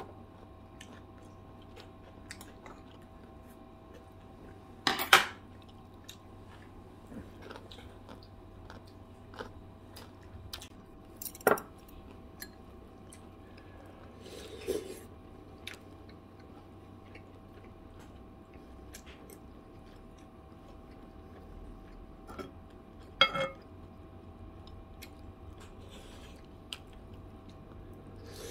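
Someone eating a meal: quiet chewing, with metal chopsticks clinking against ceramic bowls four or so times, spread out. A faint steady hum underneath.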